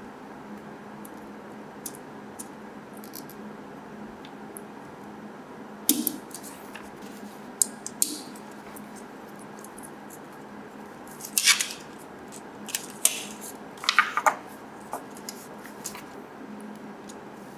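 Hard plastic parts of a Mini 4WD chassis clicking and clattering as they are handled and fitted together by hand: scattered sharp clicks and taps, with the loudest clusters about a third of the way in and again in the last third, over a steady room hum.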